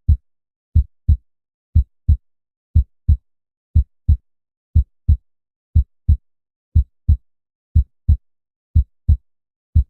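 Heartbeat sound: steady lub-dub double thumps, the two beats about a third of a second apart, repeating about once a second, with silence between beats.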